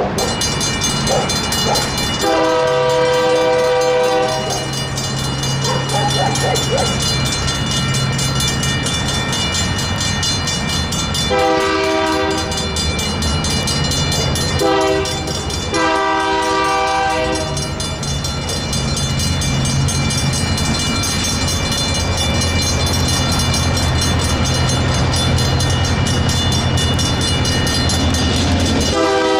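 Safetran hybrid electronic crossing bells ringing steadily as the crossing signals activate. An approaching EMD GP38N diesel locomotive sounds its horn in the grade-crossing pattern: long, long, short, long, with another blast starting near the end. Under it the locomotive's diesel engine runs low and grows louder through the second half.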